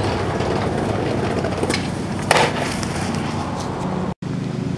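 Skateboard wheels rolling on concrete with a steady rumble, and one loud sharp clack of the board about two seconds in. The sound drops out for an instant near the end.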